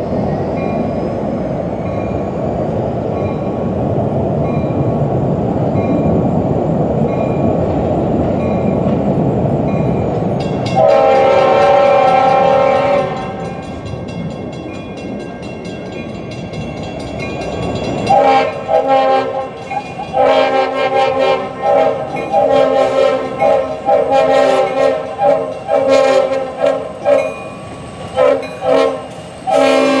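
EMD GP40-2 diesel locomotive working hard in notch 8 as it approaches, its engine a steady heavy rumble. About eleven seconds in, its Nathan RS-5T five-chime horn sounds one blast of two seconds or so. From about eighteen seconds on the horn sounds again and again in a long run of short and long blasts, louder than the engine.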